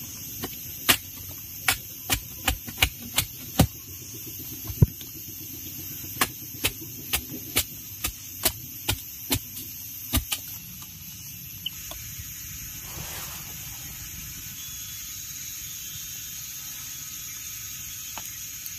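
A run of about twenty sharp clicks, roughly two a second, that stops about ten seconds in, over a steady faint hum.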